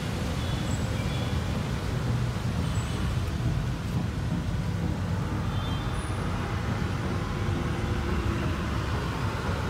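Steady low outdoor rumble of street traffic and ambient noise, even throughout with no distinct events.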